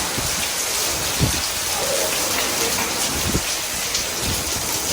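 Heavy rain pouring steadily in a summer thunderstorm, with a few short low thumps.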